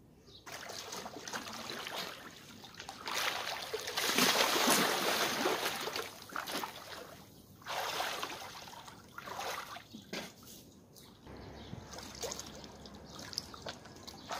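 Pool water splashing and sloshing as a swimmer kicks with fins in a small above-ground pool, loudest about four to six seconds in, then coming and going in smaller surges.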